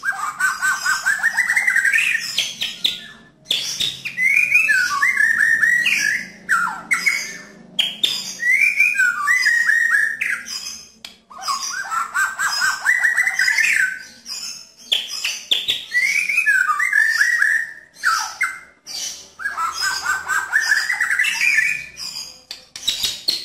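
White-rumped shama singing in the 'nembak' style, harsh and clear: about six loud phrases of two to three seconds each, separated by short pauses. Each phrase is a rapid run of repeated notes and quick rising sweeps, mixed with raspy, scratchy notes.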